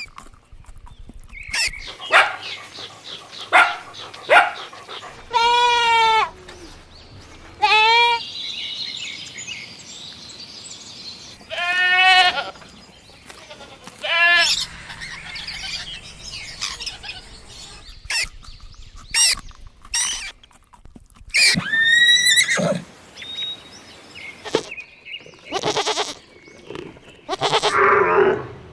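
Goats bleating: a series of separate calls with a wavering, trembling pitch, spaced a few seconds apart, with short clicks and rustling between them.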